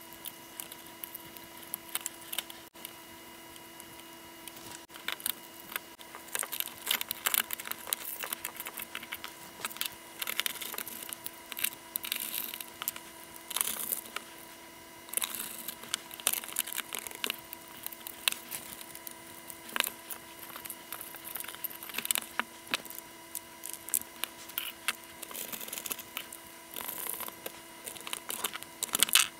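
Hands handling the Hantek 2D72 handheld oscilloscope's circuit boards and plastic case during reassembly: irregular small clicks, taps and scrapes of plastic and board parts being fitted together. Near the end a lithium battery cell is pushed into its holder.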